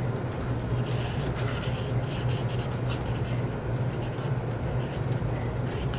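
Marker pen drawing on paper: many short, soft scratchy strokes, over a steady low electrical-sounding hum.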